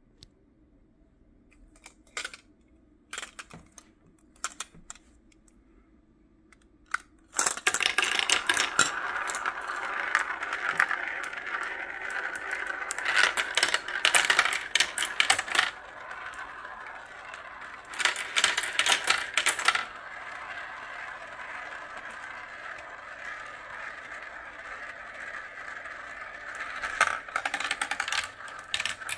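Glass marbles rolling and clattering through a clear plastic marble run. A few single clicks at first, then from about seven seconds in a continuous rolling rattle with several louder bursts of clatter as marbles drop through the tubes and circle the funnel bowl.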